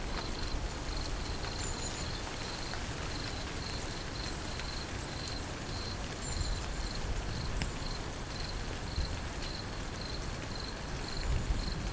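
Steady rain falling, with an insect chirping at a high pitch, about twice a second, through the rain.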